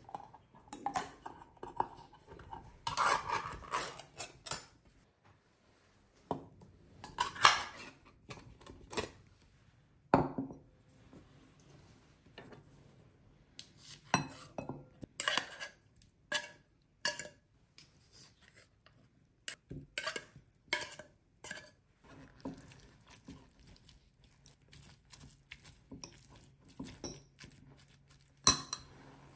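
Cutlery clinking and scraping against dishes and tuna tins in irregular bursts of sharp clicks, with short pauses between them, as canned tuna is worked into a bowl.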